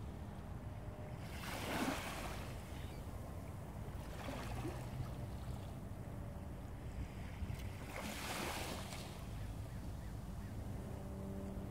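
Small waves washing against the shore three times, a few seconds apart, over the steady low drone of a fishing boat's engine.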